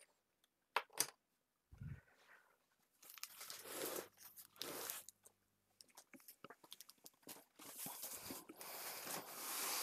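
A large cardboard shipping box being handled and set down on a wooden benchtop: cardboard scraping and rustling in several bursts, loudest near the end. Before that, about a second in, come a couple of light clicks and a soft thump.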